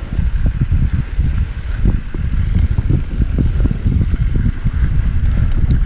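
Mountain bike riding fast down a dirt trail: wind buffeting the camera's microphone as a heavy, uneven rumble, mixed with the bike's tyres and frame rattling over bumps. A few sharp ticks come near the end.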